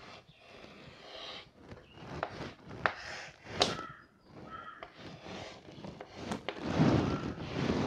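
Chalk scratching and tapping on a blackboard as a letter is written and boxed in, with a few sharp clicks, then a louder rustle near the end.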